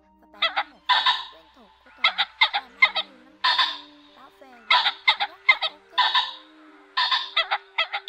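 Common (ring-necked) pheasant calls: harsh, hoarse notes in quick clusters of three or four short notes followed by a longer one, a new cluster about every two seconds or so.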